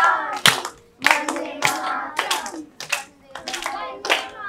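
Children clapping in a steady rhythm, a little under two claps a second, with children's voices singing along.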